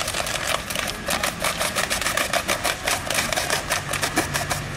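Rapid, irregular cracking of the BB cannons on radio-controlled model warships firing, several shots a second. A low steady hum comes in about three seconds in.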